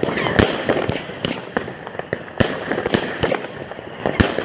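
Consumer fireworks battery firing: about ten sharp bangs at irregular spacing, at times several a second, over a continuous crackling hiss.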